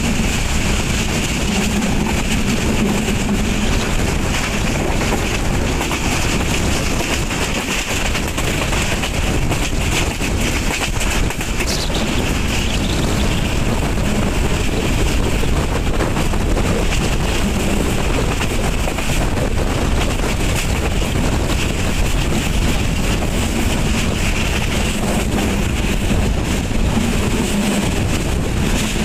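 Steady wind rush on the microphone over the running noise of a broad-gauge passenger train moving at speed, heard from an open carriage door.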